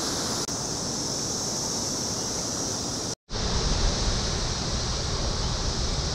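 Steady high buzzing chorus of Brood X periodical cicadas, with a noisy hiss under it. The sound cuts out briefly about three seconds in, and after that a low wind rumble on the microphone is stronger.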